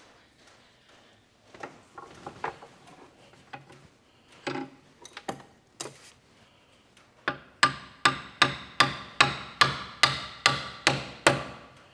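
Hammer striking metal on a tractor power steering cylinder in a workshop: a few scattered knocks and taps, then from about seven seconds in a quick, even run of ringing blows, about four a second, to free a part that is stuck firm.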